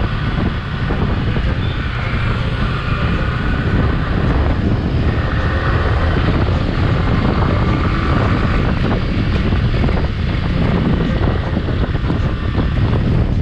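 Yamaha R15 sport bike's single-cylinder engine running under way, with heavy wind noise on the microphone.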